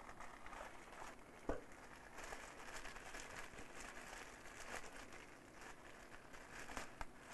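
Faint crinkling and rustling of a plastic bag around a coiled power cable being handled, with cardboard packaging rustling and a single knock about one and a half seconds in.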